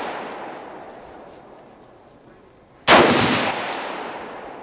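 A single rifle shot about three seconds in, sharp and loud, with a long fading echo. The opening holds the dying echo of the shot before.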